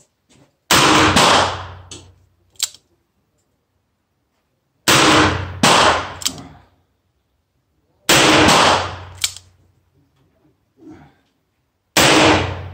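Smith & Wesson Model 10 .38 Special revolver being fired: sharp, loud shots in quick pairs and triplets, with pauses of about three seconds between groups. Each shot leaves a short decaying echo.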